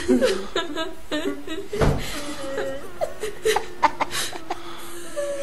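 Laughter from a horror binaural sound recording, with a single thump about two seconds in and a long held low tone through the second half.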